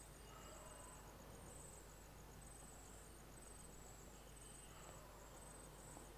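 Near silence: faint room tone with crickets chirping softly, a high-pitched trill of rapid, even pulses.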